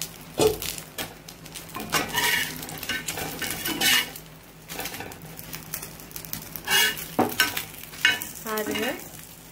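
Banana-leaf-wrapped fish parcels sizzling in oil on a tawa, while a metal spatula scrapes and knocks against the pan several times, lifting and turning them to check they are fried.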